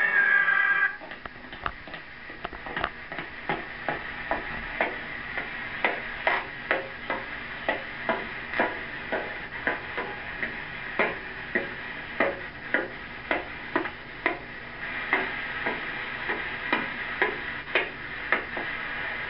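Title music cuts off about a second in. Then comes a long run of sharp knocks, roughly two a second and not quite even, over a steady background hiss.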